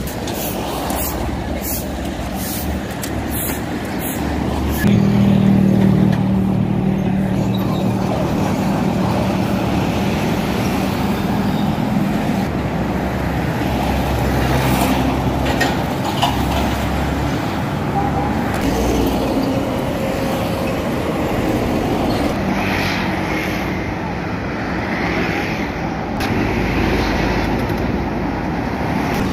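Road traffic noise from passing vehicles. A steady engine sound sets in about five seconds in and runs for several seconds, with a few sharp knocks in the first seconds.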